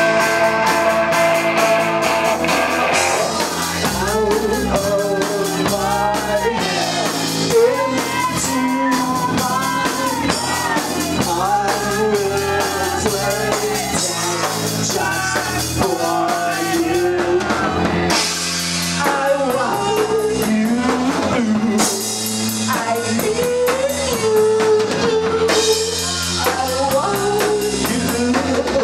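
Live rock band: a Charvel electric guitar through a Marshall amplifier, with drums. A held chord opens, and from about three seconds in a man sings over the guitar and drums.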